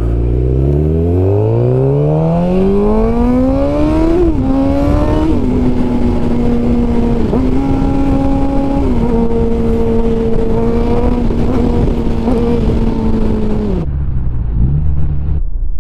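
A 2015 Suzuki GSX-R600's inline-four, running through an unbaffled M4 GP slip-on exhaust, accelerates hard from low revs. The pitch climbs steeply and drops sharply at two quick upshifts about four and five seconds in. It then cruises at steady revs, and near the end the throttle closes and the revs fall away.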